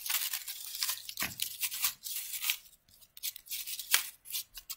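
Paper rustling and scraping as hands press a glued paper circle onto the back of a paper flower, with a sharper knock about a second in and another near the end.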